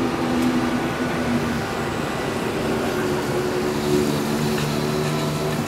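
Steady city traffic noise with a low vehicle engine hum, whose pitch shifts about halfway through.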